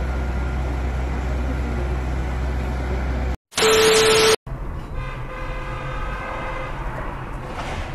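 A steady low rumble, cut off by a brief loud burst of TV-static hiss with a steady beep. Then a car horn sounds for nearly two seconds over street traffic.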